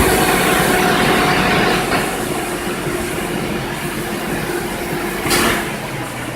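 A car engine running steadily with a faint steady whine, settling down in loudness at the start after being revved.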